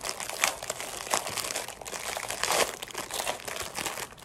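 Plastic wrapper of a Hostess cupcake crinkling and crackling in the hands as it is worked at to tear it open, with a few louder crackles along the way.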